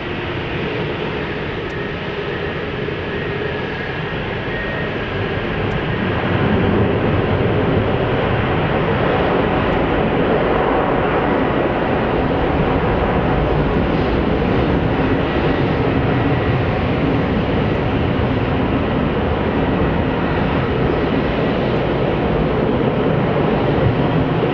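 Jet noise from an Airbus A380's four Rolls-Royce Trent 900 engines as the airliner rolls out and slows on the runway after landing: a steady, dense rumble that grows louder about six seconds in and then holds.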